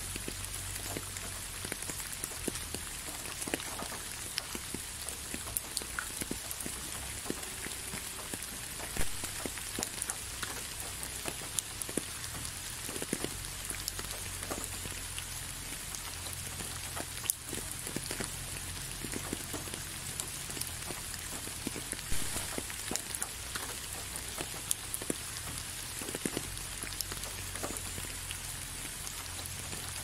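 Steady rain falling, an even hiss with many single drops ticking sharply close by, a few of them louder.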